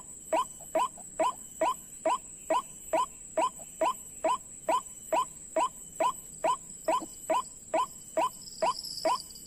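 White-breasted waterhen call: short, harsh, pitched notes repeated in a very even rhythm of about two and a half a second, over a faint steady high whine, with an insect-like buzz starting near the end.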